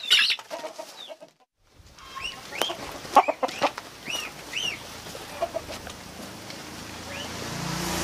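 Chicken clucking and squawking, with short high chirps that rise and fall, repeating every half second or so. There is a brief silence about a second and a half in.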